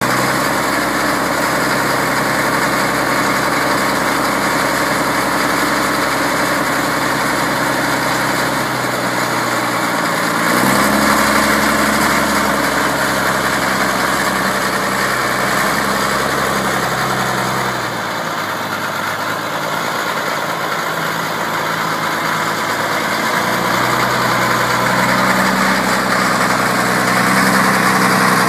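Caterpillar 966C wheel loader's diesel engine running at idle. Its speed steps up about ten seconds in, drops back a little after halfway, and climbs again toward the end.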